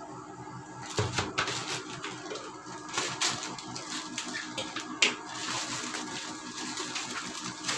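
A plastic courier pouch is handled and cut open with scissors: crinkling and rustling of thin plastic with scattered snips and clicks, and a sharp tap about five seconds in.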